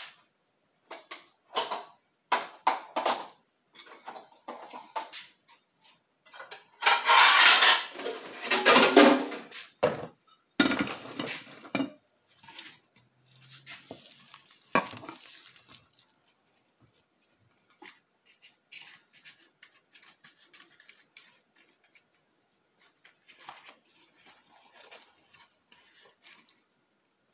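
Stainless steel mixing bowl scraping and clattering as a hand scoops and presses ground chicken mixture. The clatter comes in irregular bursts, loudest for a few seconds about a quarter of the way in, then fainter scrapes.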